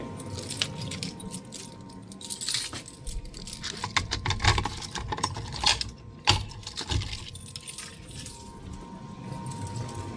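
A ring of keys jangling and clinking, with irregular clicks and rattles of handling, densest in the middle, over a faint steady tone.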